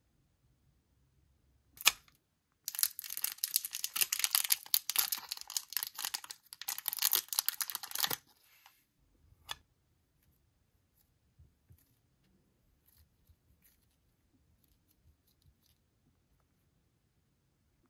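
A clear plastic bag of modelling dough crinkling as it is torn open, for about five seconds, with a sharp tap just before and another shortly after. Then only faint, scattered soft taps as the dough is handled.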